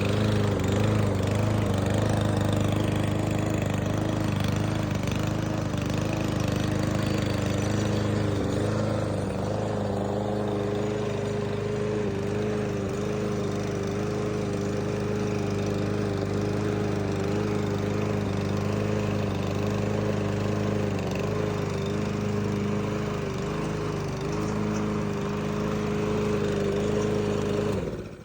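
Cub Cadet CC 550 SP self-propelled gas lawn mower engine running steadily, its pitch wavering slightly.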